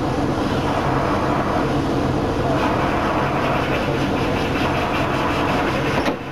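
Diesel engine of an Iyotetsu Botchan Ressha replica steam locomotive idling with a steady, pulsing low hum while the train stands still. A sharp click about six seconds in, after which it is a little quieter.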